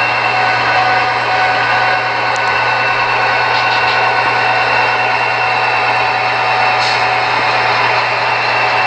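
HO scale model train with BNSF-patched Santa Fe diesel units running steadily, a continuous engine-like drone with a steady whine above it.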